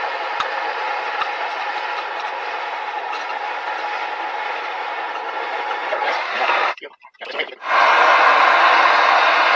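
Water running steadily from a shower that has just had its valve repaired. It cuts out briefly about seven seconds in and comes back louder.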